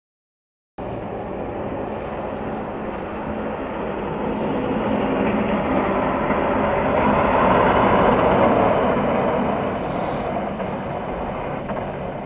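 Motor vehicle driving: steady engine and road noise that grows louder toward the middle and then eases off.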